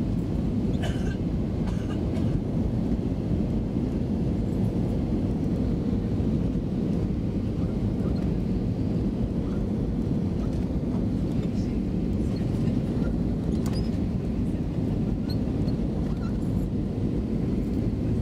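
Steady cabin noise of an Airbus A320 in flight, with the engines and rushing airflow heard from inside as an even low rumble and a faint steady hum.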